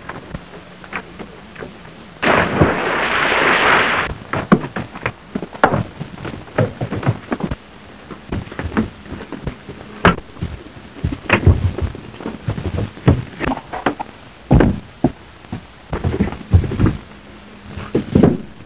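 Brawl: an irregular string of sharp thuds and blows. A denser, harsher burst of noise comes about two seconds in and lasts nearly two seconds.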